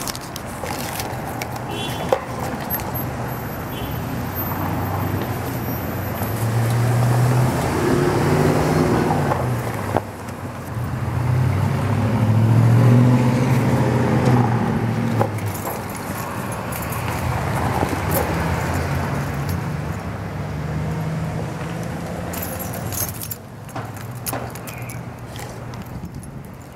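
Street traffic: cars and a pickup truck driving through an intersection one after another, their engine and tyre sound swelling and fading as each passes. The loudest passes come about a quarter and about half way through.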